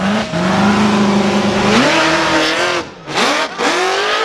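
A 1000-horsepower rock bouncer's engine at high revs under load. It holds a steady pitch, rises about two seconds in and cuts off briefly around three seconds. It then comes back in quick rising and falling revs as the throttle is worked.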